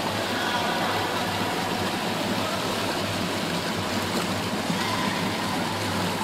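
Swimming-pool water noise: a steady rush of splashing and churning water, with a faint low hum beneath it.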